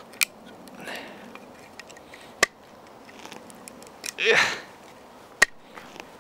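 Tip of a Schnitzel DU carving knife being pressed and twisted into a hard wooden plank: three sharp cracks of wood, with a couple of short hissy scrapes between them.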